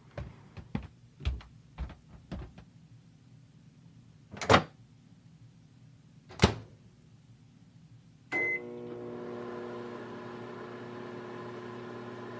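Microwave oven being worked: a run of light clicks and two sharper knocks, then a short beep about eight seconds in, and the microwave starts running with a steady hum, heating a microwavable heat pack.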